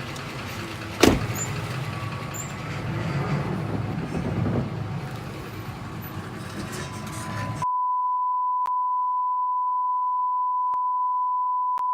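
Low rumble of a vehicle engine running, with a single sharp knock about a second in. About eight seconds in, all of it is cut and replaced by a steady one-tone censor bleep that runs through to the end.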